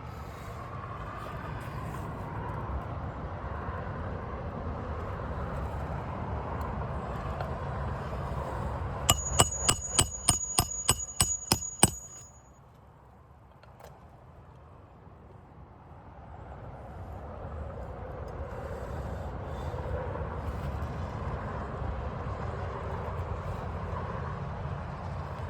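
A hammer drives a roofing nail into an asphalt shingle: about ten quick, ringing metal-on-metal taps over about three seconds, partway through. A steady low rumbling noise runs under them, drops away just after the taps and builds back up.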